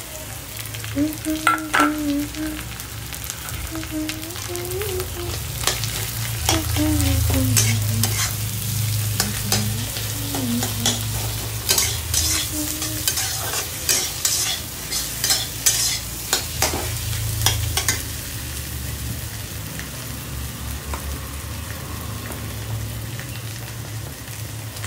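Potato filling frying in hot oil in a pan: a steady sizzle, with the repeated scrape and clack of a spatula stirring it against the pan.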